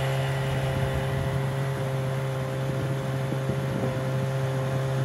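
1993 25 hp Mercury two-cylinder two-stroke outboard running steadily at speed, its note holding even, with water rushing in the wake. The engine now runs smoothly at high revs without bogging, its ignition coils freshly replaced.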